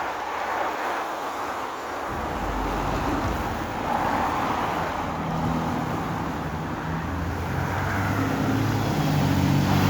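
City bus engine heard from inside the cabin, with road noise; about two seconds in the engine note comes up and grows louder towards the end as the bus accelerates.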